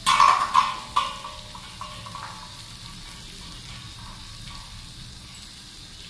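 Green chillies and ginger-garlic paste frying in hot oil in a nonstick pan, with a low steady sizzle. A few loud clattering knocks in the first second, from something handled against the pan.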